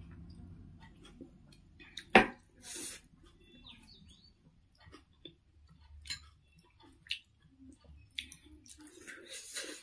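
Eating sounds from a bowl of noodle soup: a metal spoon clinks sharply against the bowl about two seconds in, followed by slurping. Quieter spoon clicks and chewing come and go, with more slurping near the end.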